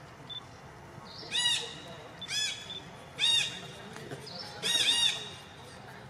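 A parrot gives loud, clear calls about once a second, each a short note that rises and falls, the last a quick double call. Fainter high chirps from other birds sound in the background.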